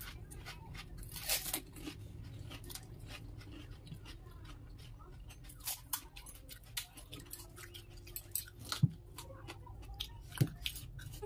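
Crisp hollow golgappa (fuchka) puris being cracked open with the fingers, filled and crunched while eating: many small, irregular cracks and crunches, with a few sharper knocks around nine and ten seconds in.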